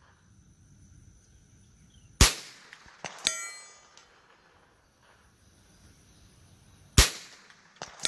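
Two .22LR shots from a Ruger 10/22 semi-automatic rifle about five seconds apart, each followed about a second later by the ringing clang of a 16-inch steel gong being hit at 300 yards. The second clang comes at the very end.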